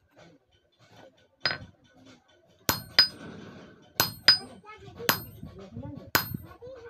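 Hand hammer striking a small steel piece held upright on an unheated steel strip over an anvil, cold-working a sickle blank. Seven sharp metallic strikes at uneven spacing, each ringing briefly.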